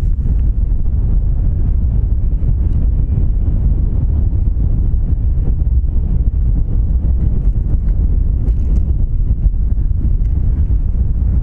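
Wind buffeting the microphone: a steady, loud low rumble with no distinct events.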